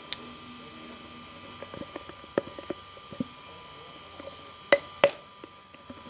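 Hands handling a glue bottle and slime container: scattered light plastic taps and clicks, with two sharp, loud clicks about a third of a second apart near the three-quarter mark, over a faint steady whine.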